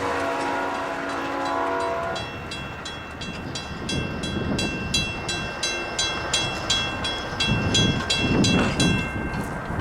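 A passing train's horn chord is held for about two seconds and then stops. A bell then rings rapidly, about four strikes a second, over gusty wind rumble.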